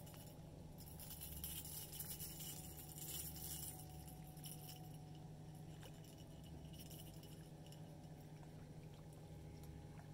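A small fish being landed from the shallows on a fishing rod: faint splashing and rustle for a few seconds near the start, then light clinks of the tackle as it is lifted out on the line.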